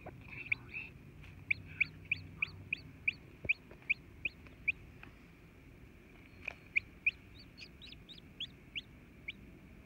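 Newly hatched chicks peeping: a run of short, high peeps about three a second, with a pause of a couple of seconds about halfway through.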